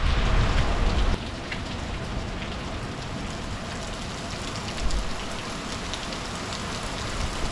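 Heavy rain falling steadily, with scattered sharp ticks of single drops hitting close by. A low rumble of wind on the microphone stops about a second in, leaving the even hiss of the downpour.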